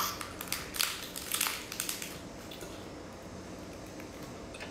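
Close crunching and crackling bites as a bundle of tube-shaped seafood is bitten and chewed. There are several sharp crunches in about the first two seconds, then only a few small clicks.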